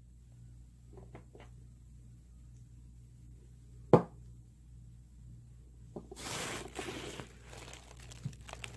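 Handling noise as the recording phone is moved: a sharp knock about four seconds in, then a couple of seconds of rustling and scraping near the end.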